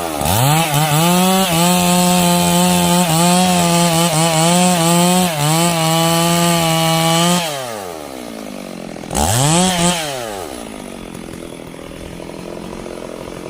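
Two-stroke chainsaw at full throttle cutting sengon wood for about seven seconds, its pitch dipping slightly under load. It then drops to idle, is blipped once briefly about nine seconds in, and idles to the end.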